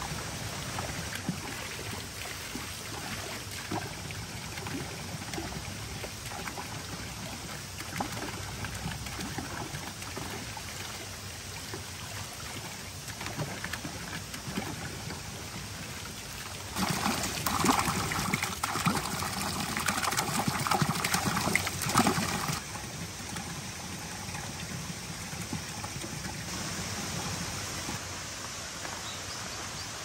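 A small stream trickling and splashing over rocks. For about five seconds in the middle, louder splashing as feet are rinsed in the running water.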